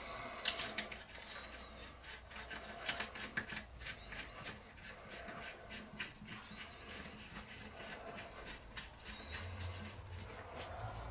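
Light metallic clicks and clinks of steel nuts being handled and run by hand onto the studs of a small steam engine's split brass crankshaft bearing caps, scattered irregularly.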